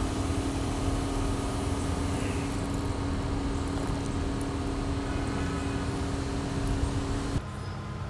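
Steady machine hum with a constant low tone and a hiss over it, which drops away abruptly near the end.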